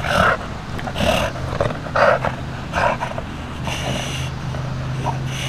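A bully-breed dog breathing hard through its nose and mouth, a short noisy breath about once a second, its muzzle pressed into a canvas bite sleeve.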